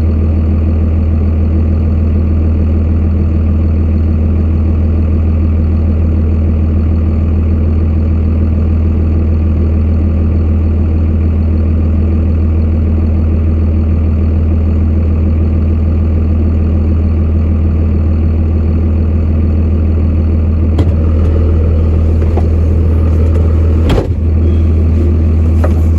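Farm truck engine running steadily with a strong low drone. A single sharp knock sounds near the end.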